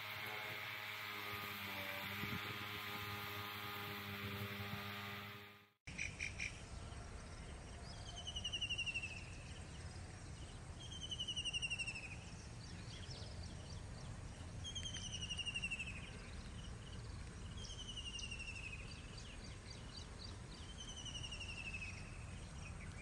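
A steady low hum that cuts off about six seconds in, followed by a bird repeating a short descending trill about every three to four seconds over a faint outdoor rumble.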